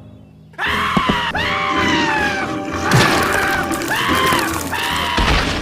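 A cartoon character's voice crying out in a run of wordless, arching yells, each rising and falling in pitch, over background music. It starts abruptly about half a second in.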